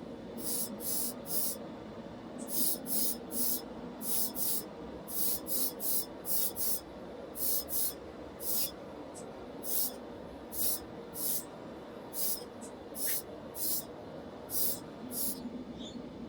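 About two dozen short spray bursts, each a fraction of a second of high hiss, coming in irregular runs over a steady low hum.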